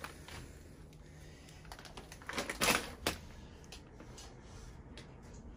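Light knocks and clatter of junk underfoot while walking through a cluttered room, with a few sharper knocks close together about two and a half to three seconds in and fainter ticks after.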